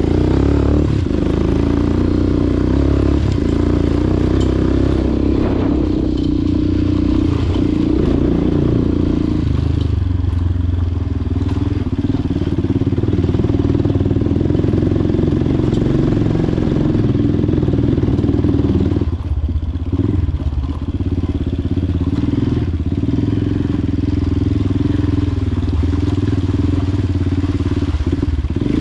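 Small motorcycle engine running steadily under way at an even pitch, with a brief drop in level about two-thirds of the way through.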